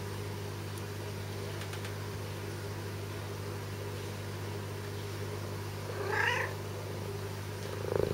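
A four-week-old Bengal kitten gives one short, wavering mew about six seconds in, and starts another at the very end, over a steady low hum.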